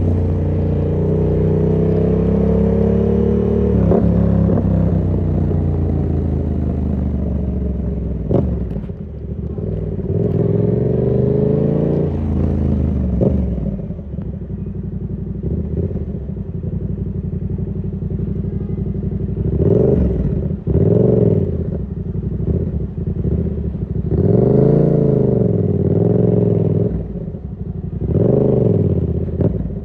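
Yamaha MT-07 parallel-twin engine through an SC-Project exhaust with the dB killer in, pulling up through the revs twice with a sharp click between the pulls. It settles to a steadier, lower note, then gives several short throttle blips, each rising and falling quickly, in the last third.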